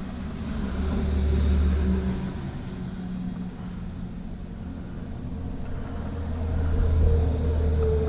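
Low rumble of passing road vehicles, swelling twice: about a second and a half in and again near the end.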